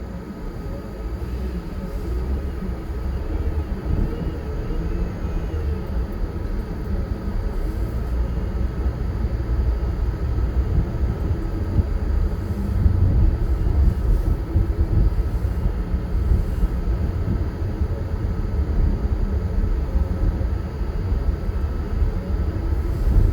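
Car driving along the road: a steady low rumble of engine and tyre noise.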